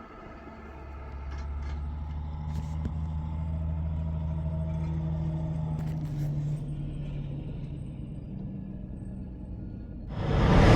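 Vehicle engine running with a steady low hum that swells over a couple of seconds and then fades away. Near the end a loud rushing noise cuts in suddenly.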